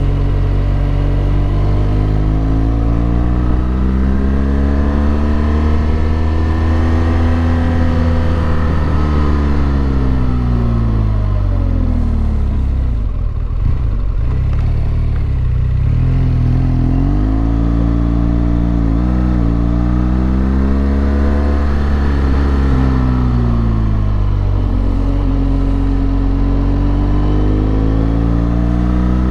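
Motorcycle engine heard from on the bike, its note rising and falling in long smooth sweeps as the rider opens and closes the throttle, with a brief drop in revs near the middle.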